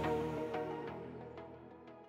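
Background music fading out: held notes with a few struck notes about every half second, dying away.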